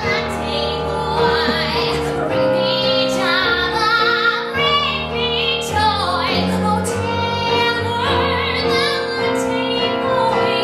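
A woman singing solo into a microphone, her held notes wavering with vibrato, over steady instrumental accompaniment.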